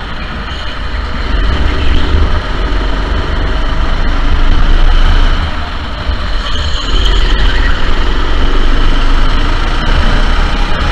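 Sodi SR4 rental go-kart's four-stroke engine running under load, with heavy low rumble. It eases off briefly about six seconds in, then picks up again.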